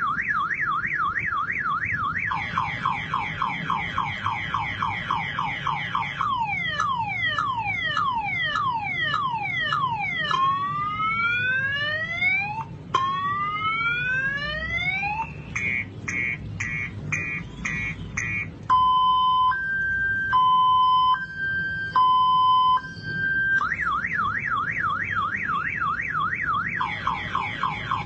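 Motorcycle anti-theft alarm sounding and cycling through its tones: a fast up-and-down warble, then falling and rising sweeps, a run of rapid chirps, and a slow two-tone high-low, returning to the fast warble near the end.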